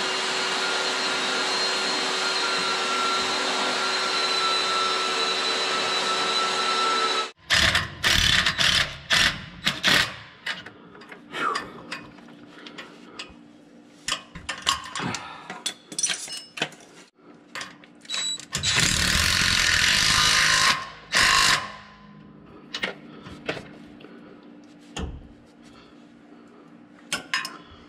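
A steady machine whine with a few fixed tones cuts off suddenly about seven seconds in. Then come metal clanks and clicks of tools and parts, and a power tool runs for about two seconds near twenty seconds in, as sway bar bushing bracket bolts are fitted.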